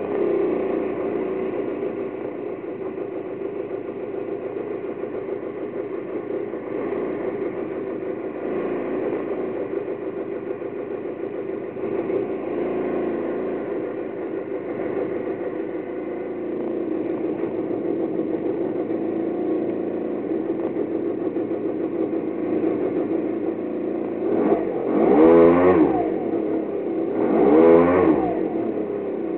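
2003 Aprilia Scarabeo 50 DiTech scooter's two-stroke direct-injection single-cylinder engine idling steadily. Near the end the throttle is blipped twice, each rev rising and falling back to idle.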